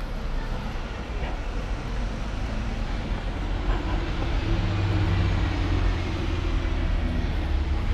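Street traffic noise, with a city bus's engine running close by: a low steady hum comes in about halfway through and holds until near the end.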